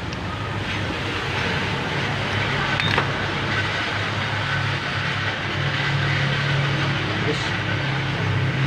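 A steady low machine hum over a noisy hiss, with one sharp click about three seconds in.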